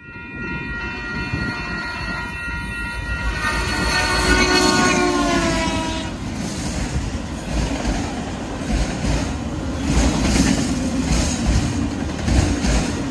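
Diesel freight locomotive's multi-tone air horn blowing as the train approaches, its chord dropping in pitch as the Union Pacific locomotive passes close by about five seconds in, over the engine's rumble. Then freight cars roll past with the repeated clack of wheels over rail joints.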